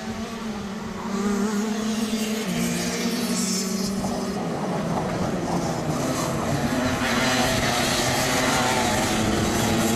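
Several two-stroke racing kart engines (Rotax DD2 class) running at high revs as a pack of karts passes, growing louder about a second in and thickening into a mix of engines from about four seconds in.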